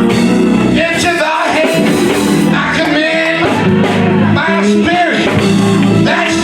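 A voice singing long held notes over a steady instrumental backing.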